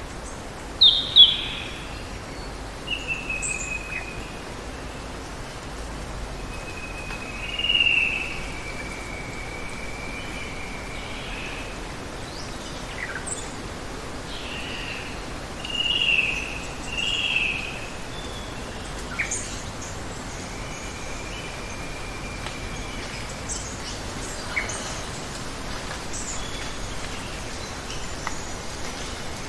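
Birds calling now and then over a steady hiss of running water: a pair of sharp, falling notes about a second in, then drawn-out whistled notes around a third of the way through and a pair of short calls about halfway.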